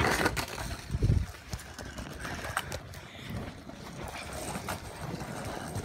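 Footsteps and handling noise as people walk up to a house: irregular light clicks and knocks, with a dull thump about a second in.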